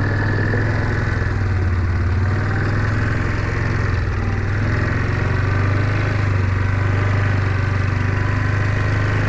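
Engine running steadily at an unchanging speed, a constant low hum.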